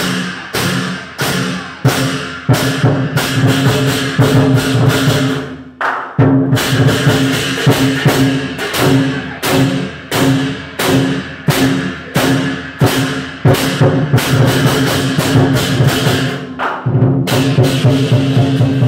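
Lion dance percussion: a large Chinese drum and clashing cymbals beating a steady rhythm of about two strokes a second. The beat breaks off briefly twice, about six seconds in and near the end.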